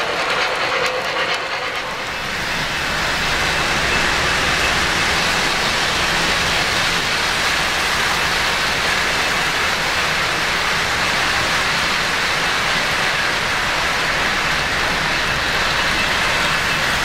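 O-gauge model freight train rolling past on three-rail track: a steady rumble and clatter of metal wheels that builds up about two seconds in.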